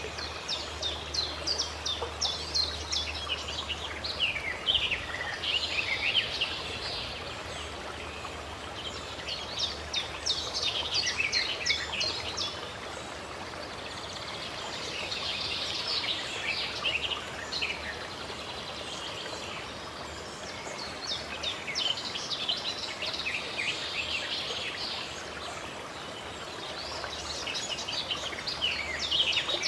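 Birds chirping and twittering in quick bouts every few seconds over a steady hiss of running water.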